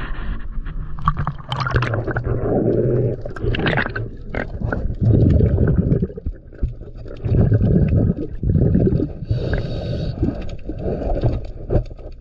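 Underwater, a scuba diver's regulator breathing: bursts of exhaled bubbles about every two to three seconds, with a few sharp clicks and scrapes between them.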